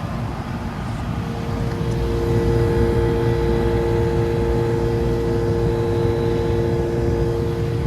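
Outdoor central air conditioner condenser unit running: a steady compressor hum with two even tones over the rushing noise of the condenser fan, growing louder about a second and a half in.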